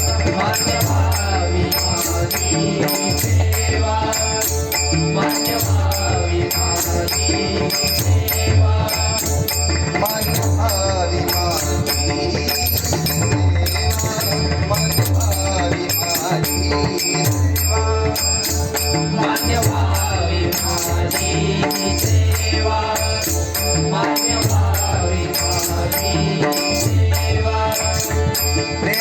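Marathi devotional bhajan music in raga Bhairavi: a melody line with gliding pitch over a steady percussion beat with a repeating low drum stroke.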